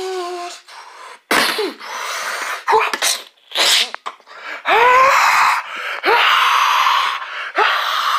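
A young man's harsh, breathy yells and grunts, a string of short loud bursts about a second apart, some starting with a rising cry, as in a staged knife fight.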